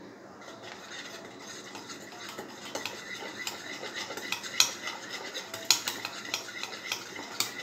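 Metal wire whisk beating a flour batter in a bowl by hand: quick ticking of the wires against the bowl, starting about half a second in, with a few sharper clacks.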